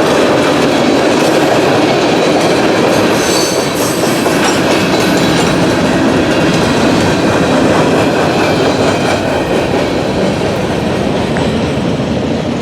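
Freight cars of a CSX manifold freight rolling past at track speed, a steady loud rush of wheels on rail with clickety-clack over the rail joints.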